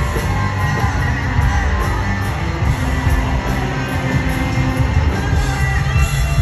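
Live country band playing an instrumental passage, led by electric guitar over bass and drums.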